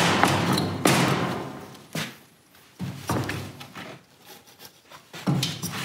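Rough scraping and clunking as the aluminium hub carrier of a Jaguar E-Type's independent rear suspension is wrenched by hand on its splined half shaft, which is stuck fast in the hub. The loudest knocks come at the start and about a second in, with quieter ones later.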